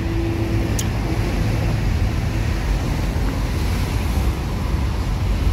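Steady low rumble of motor vehicles, with wind buffeting the microphone.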